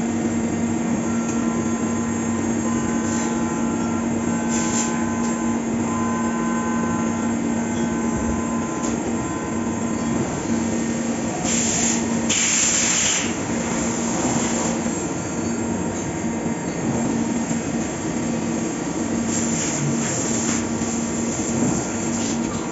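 5-axis CNC milling machine cutting a part: a steady spindle hum with fainter whining tones from the cutter. There are a few short bursts of hiss, the loudest about twelve seconds in.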